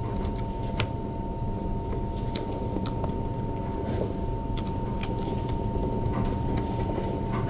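Steady low rumble with a constant thin whine running through it, and scattered light clicks and taps as kittens move around and nose into a plastic dish.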